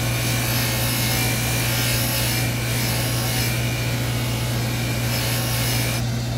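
Drill press running with a steady low motor hum while a block is pressed against its spinning green abrasive buffing wheel, giving a steady rubbing noise that stops abruptly about six seconds in.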